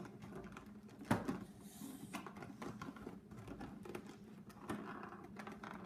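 Packaging being handled while a puzzle is unboxed: a sharp knock about a second in, then light rustling and small clicks.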